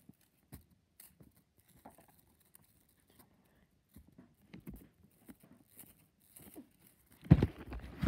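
Handling noise: soft scattered clicks and rustles of fabric as the phone is moved over blankets, then a loud thump and rustle about seven seconds in.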